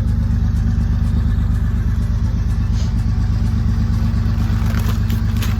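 A vehicle engine running steadily at low revs, with an even, rapid low pulse.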